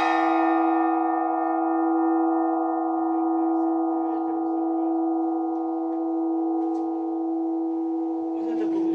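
Church bells ringing on after the last strikes of the peal, a steady low hum with bright overtones slowly dying away. Faint small noises come in over the hum near the end.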